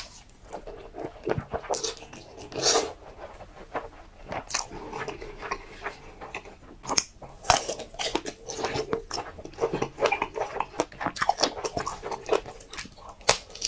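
Close-miked eating sounds of a man with a mouthful of spicy stir-fried noodles: noodles sucked in, then wet, sticky chewing with many short mouth clicks and smacks.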